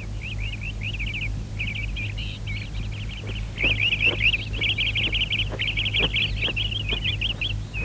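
Rapid high chirping and twittering of a cartoon parrot, growing louder and busier about halfway through, over a steady low hum.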